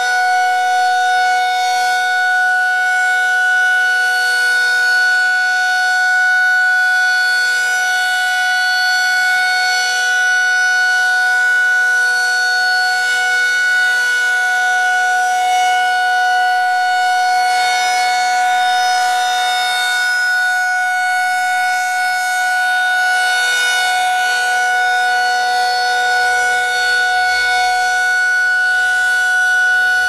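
Federal Signal 2001 rotating electromechanical tornado siren sounding a steady alert tone during its monthly test, holding one pitch without wailing up or down as the horn turns.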